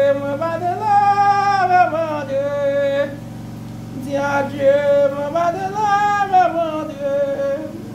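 Haitian Vodou chant: a voice holds long sung notes in two phrases, each rising and then falling back, over a steady low hum.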